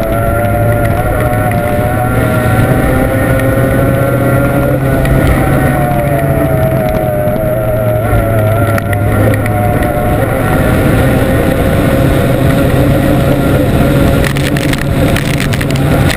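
Formula 1 racing powerboat's outboard engine running hard at speed, heard onboard over loud wind and water rush, its note wavering slightly. A run of sharp knocks comes near the end.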